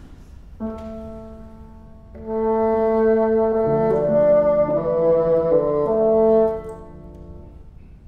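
Bassoon and piano sounding long held notes: a soft note about half a second in, louder and fuller from about two seconds with several notes sounding together and shifting, then stopping about six and a half seconds in, with a short ring in the hall.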